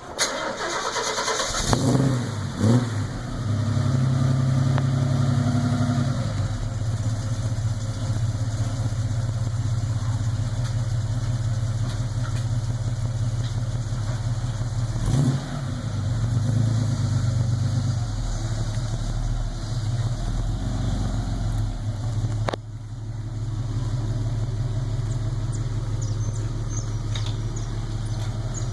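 A 1974 Chevrolet Opala's freshly rebuilt 250 cu in inline-six engine starts up and settles within about two seconds. It then runs at a steady, rumbling idle, with two short blips of the throttle, one soon after starting and one about halfway through.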